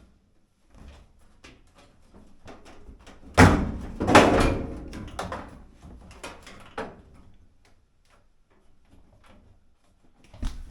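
Sheet-metal front panel of a GE dryer being tipped back and shifted, with two loud clanging knocks about three and a half and four seconds in, and scattered clunks and rattles around them.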